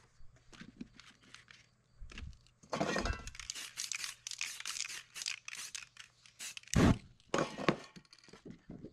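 A spray paint can used in a quick run of short hisses and clicks on poster board. A sharp thump comes about seven seconds in, followed by the board being handled.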